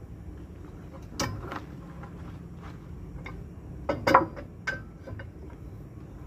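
A few scattered metal knocks and clinks from tyre-changing work on a truck wheel, the loudest cluster about four seconds in, over a low steady hum.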